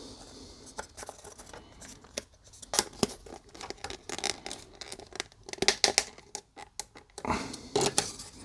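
Hard polystyrene model-kit parts being handled and pushed together: a run of sharp, irregular clicks and taps with some scraping, busiest in the second half.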